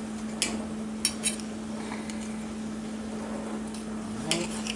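A knife clinking against a china plate as a glazed lemon loaf is cut: a few sharp clinks near the start and two more near the end, over a steady low hum.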